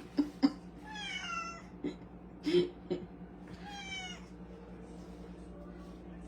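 Domestic cat meowing twice, each meow falling in pitch, with a third beginning near the end; a few short knocks fall between the meows.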